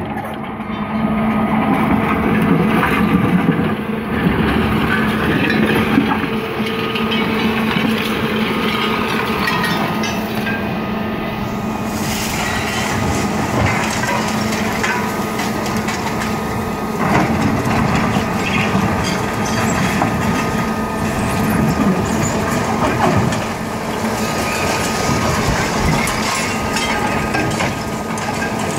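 Electric-drive Caterpillar hydraulic excavator digging rock: a steady hum from its electric motor and hydraulic pump, with the bucket scraping and rocks crunching and knocking.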